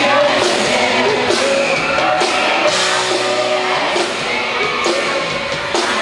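A live pop-rock band playing a song with a lead singer, heard from the audience.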